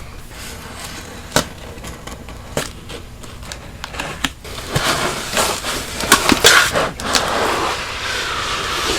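Packaging being handled and opened: a few sharp clicks and taps, then denser crinkling and scraping from about five seconds in.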